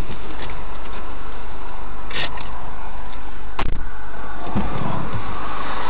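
Loud, steady noise inside a stopped car as picked up by a dashcam's microphone, with a low hum underneath. Two sharp clicks come about two and three and a half seconds in.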